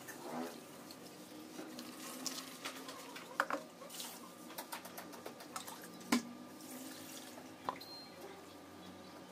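Rice being washed by hand in water in a metal bowl: soft swishing and small splashes, with a few sharp clicks against the bowl, the clearest about three and a half, six and seven and a half seconds in.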